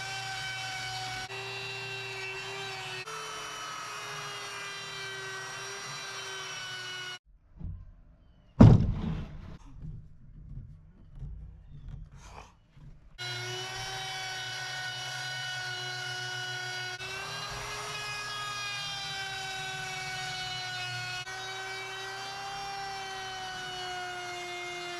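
Handheld wood router running at high speed, a steady whine that dips slightly in pitch as it cuts into a wood slab. It stops for a few seconds in the middle, where there is one sharp loud knock.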